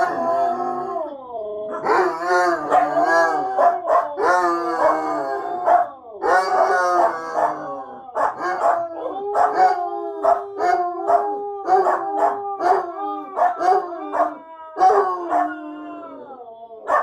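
A Siberian Husky, a Basset Hound and a small dog howling together, several voices overlapping with wavering, gliding pitches. From about halfway through, the howls break up into shorter, choppier calls.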